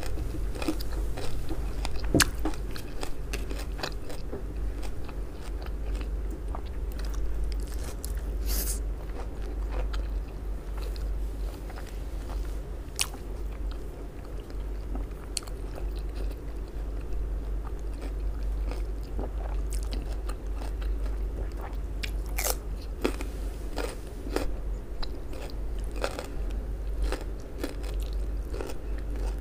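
Close-miked eating sounds: a person biting and chewing baked eggplant pizza, with frequent short wet clicks and soft crunches from the mouth.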